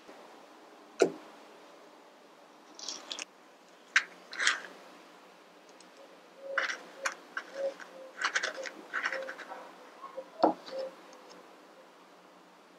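Empty avocado skins handled and set down on a wooden plate: sharp taps about one and four seconds in, then a run of small clicks and scrapes ending in a knock about ten and a half seconds in.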